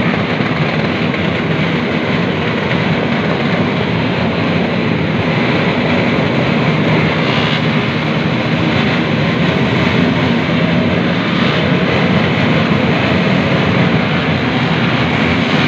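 Engines of many small motorcycles and scooters running at once: a loud, steady din.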